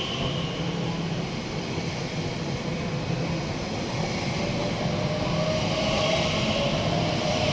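Elizabeth Line Class 345 electric multiple unit pulling away from the platform. Its steady hum is joined about halfway through by a motor whine that slowly rises in pitch as the train picks up speed.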